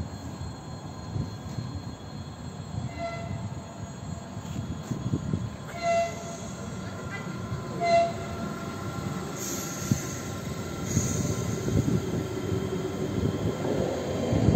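Electric train horn giving short toots, a faint one about three seconds in and then two louder ones about two seconds apart, over the steady rumble of an Ivolga electric train running past the platform. Near the end the rumble of wheels on rails swells as another train comes in.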